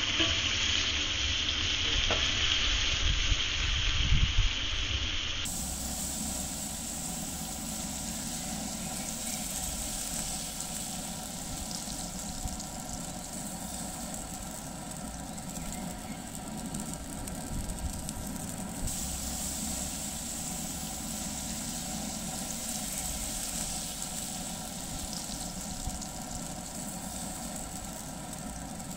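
T-bone steak sizzling in foaming butter in a cast-iron grill pan, over a low rumble. Louder for the first five seconds, with a couple of knocks, then a steady, even sizzle.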